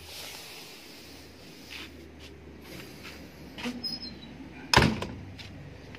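A vehicle door slammed shut once, a single loud bang near the end, after a few seconds of quiet rustling as hands move over the seats.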